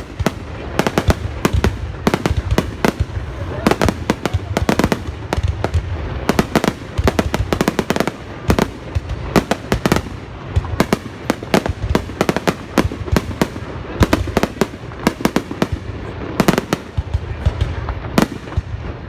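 New Year's Eve fireworks display: a continuous barrage of sharp bangs and crackles, several a second, over a steady low rumble.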